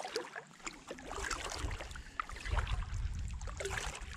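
Kayak paddle strokes splashing and dripping in the water, with wind rumbling on the microphone from about a second in.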